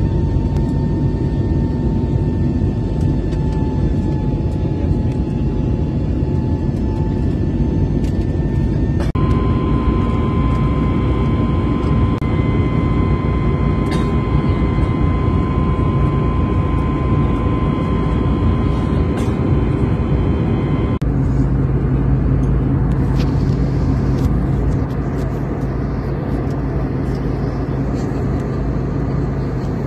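Steady rush of jet airliner cabin noise in cruise flight: the deep roar of engines and airflow, with a faint steady engine whine over it. The tone of the noise changes abruptly twice.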